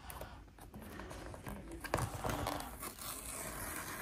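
Paper-and-cardboard Apple Watch box handled by hand, with a scratchy paper tearing from about two seconds in as its paper pull-tab strip is torn off.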